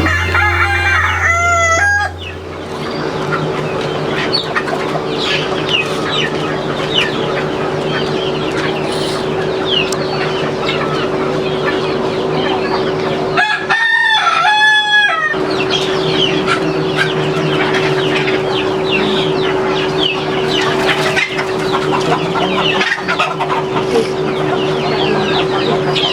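A flock of chickens clucking over a steady mechanical hum. One long, loud two-part call, a rooster crowing, rises above them about fourteen seconds in.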